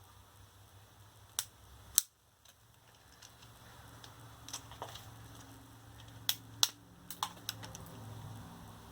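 Sharp, scattered clicks and taps from parts of a scooter's lithium-ion battery pack being handled during teardown, about nine in all, the loudest two about 2 seconds and 6.5 seconds in.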